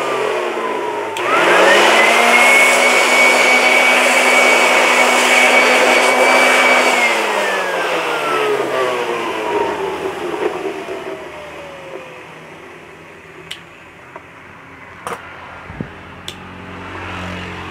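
Electric air blower's motor blowing dust out of a car stereo's chassis and circuit board. It is winding down at first, starts again about a second in and rises to a steady high whine for about five seconds, then slowly spins down over several seconds after it is switched off. A few light clicks follow near the end.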